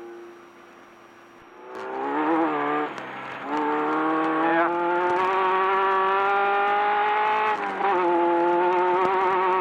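Desert race buggy's engine and drivetrain at high revs under hard acceleration, a whining tone that jumps much louder about two seconds in. The pitch wavers, then climbs slowly and holds high, with a short dip near the end.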